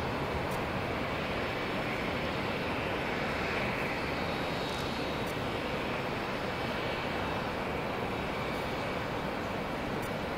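Jet airliner engines at taxi idle: a steady, even rushing noise with a faint high whine.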